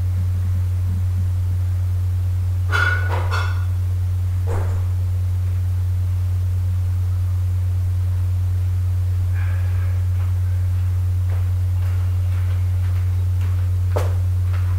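Steady low electrical hum, with a few faint, brief sounds in the background about three seconds in and again near ten seconds.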